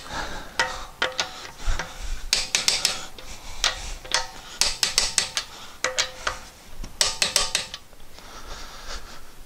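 Torque wrench ratcheting on a car's wheel lug nuts: four quick runs of rapid metallic ratchet clicks with a few single clicks between, as the nuts are tightened to 80 lb-ft.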